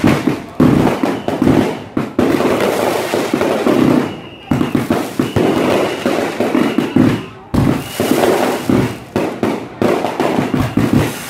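Dense volleys of bottle rockets fired from a beehive rocket launcher: rapid, overlapping crackling pops and bangs that barely let up, easing briefly about four and seven and a half seconds in.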